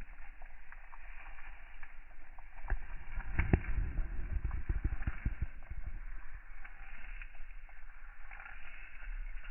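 Rabbit chewing fresh leaves and stems close to the microphone: a fast run of small crackly crunches. Between about three and five and a half seconds in there is a run of louder low thumps.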